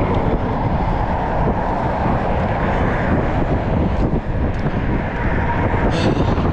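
Road traffic on a multi-lane highway: steady tire and engine noise of passing cars over a heavy low rumble, with a car passing close about six seconds in.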